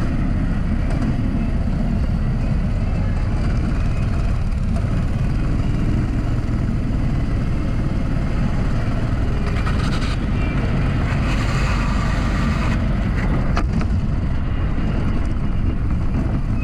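Go-kart engines running steadily at slow parade pace, heard through a camera mounted low on a kart, with a heavy low rumble throughout.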